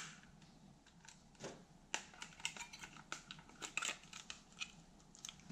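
Faint, irregular plastic clicks and small rattles from the electric flyswatter's handle as batteries are fitted into its battery compartment.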